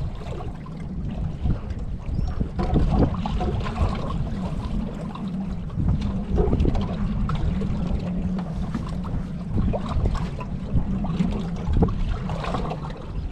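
Wind buffeting the microphone on a small fishing boat, a steady uneven rumble, with water lapping at the hull and scattered light knocks.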